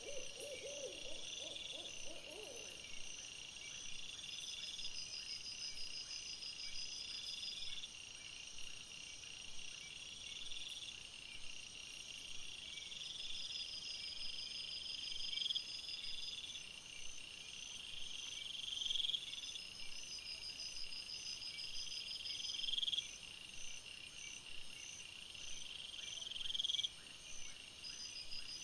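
Night chorus of calling animals: a high chirring call that rises and ends sharply, repeating about every three to four seconds, over a steady higher trilling. A brief low pulsing call sounds in the first two seconds.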